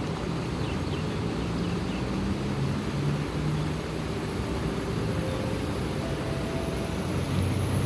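Steady low rumble of a diesel bus engine running, with its pitch shifting slightly now and then.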